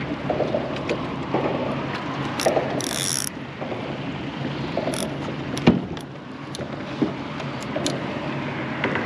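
Fishing tackle handled on a boat: mechanical clicking and scattered knocks over a steady rushing noise, with one sharp knock a little past halfway.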